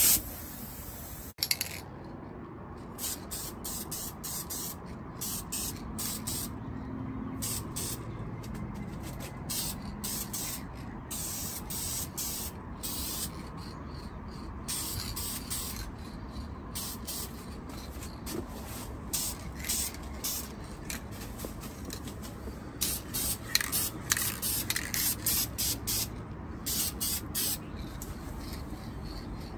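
Aerosol spray-paint can (Dupli-Color) spraying paint onto a metal control arm in many short bursts, the bursts coming closer together and louder near the end.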